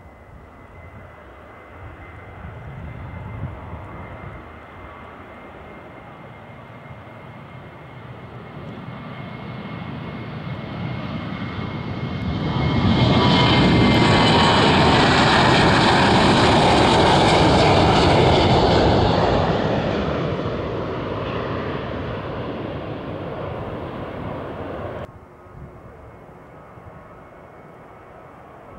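Boeing 737 jet engines at takeoff power as the airliner rolls down the runway and passes close by: the engine noise builds steadily, is loudest with a high hiss about halfway through, then fades as it climbs away. Near the end it cuts off suddenly to fainter, steady distant jet noise.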